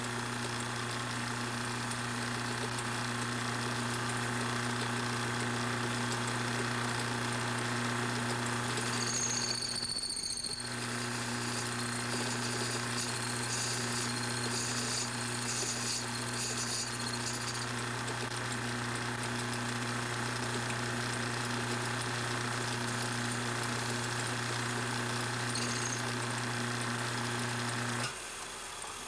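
Watchmaker's lathe motor running with a steady hum as a tool takes light cuts in a spinning brass clock barrel. High thin tones come and go through the middle stretch. The hum stops about a second before the end as the lathe is switched off.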